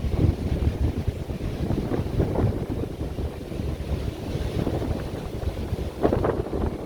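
Wind buffeting the microphone in gusts, with ocean surf washing in the background.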